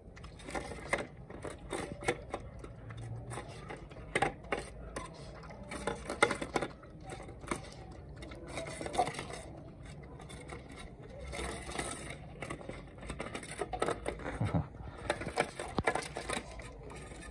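Puppy eating from a metal bowl on a concrete floor: irregular clicks and scrapes as the bowl is nudged and knocked, with chewing and lapping.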